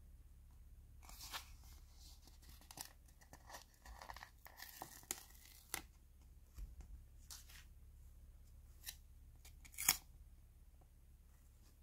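Paper sticker peeled off its backing sheet with soft crackling and tearing, then a few sharp clicks of fingers pressing it onto a hard plastic toy shell, the loudest click near the end.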